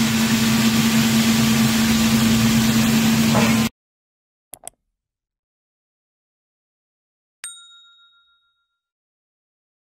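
A steady hum over constant noise cuts off suddenly a little under four seconds in. Then come two quick mouse clicks and, about three seconds later, a single bell ding that rings out for about a second: the click and notification-bell sound effects of a subscribe-button animation.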